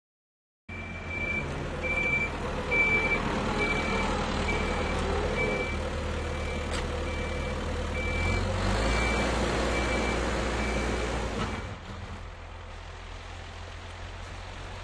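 Tractor engine running under load with a reversing alarm beeping about twice a second; the sound starts suddenly under a second in, and about 12 s in the beeping stops and the engine drops to a quieter steady run.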